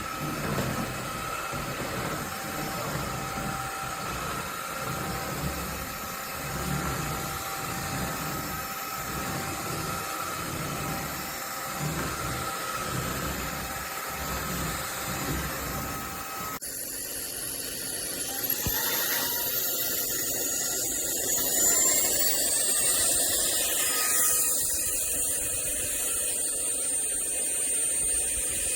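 INTETURE 450W cordless stick vacuum cleaner running with a steady motor whine. About two-thirds of the way through the sound changes abruptly to a higher whine that rises in pitch.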